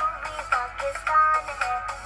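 A sung Urdu patriotic song with instrumental backing, a continuous melodic vocal line. It sounds thin, with almost no bass.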